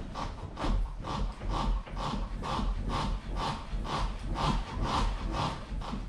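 Ford Mondeo rocking on its rear suspension as someone bounces in the back, a repeated creak with a low thud about twice a second. This is a test of whether the tyre rubs on the freshly cut rear wheel arch, and no scrape is felt.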